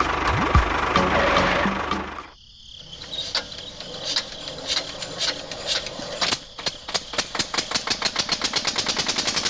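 Background music for the first two seconds cuts out. A miniature single-cylinder stationary engine model then starts chugging, its beats coming slowly at first and speeding up into a rapid, even putter of several beats a second as it drives a belt-driven grain mill.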